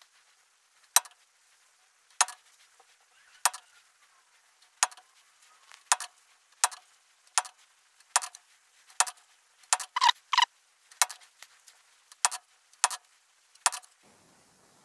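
Hammer blows on a steel letter stamp held against a steel bar on an anvil, punching letters into the metal: sharp single metallic strikes, a little over a second apart at first, then coming quicker from about six seconds in, with a fast run of three or four around ten seconds.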